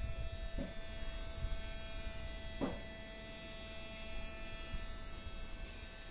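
Steady electrical buzz and hum from a working model of an electric power grid, with two brief short sweeps about half a second and two and a half seconds in.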